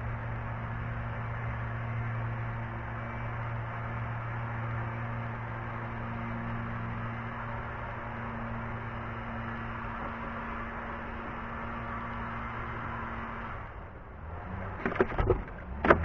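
A steady low mechanical hum with a hiss over it, which drops away near the end. A quick cluster of sharp knocks follows about a second and a half before the end, the loudest sounds.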